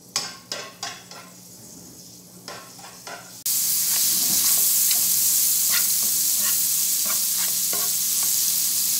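Minced garlic frying in hot oil in a nonstick pan, stirred and scraped with a silicone spatula. For the first few seconds only light knocks of the spatula against the pan are heard; then a loud, steady sizzle comes in suddenly and holds, with the spatula's strokes over it.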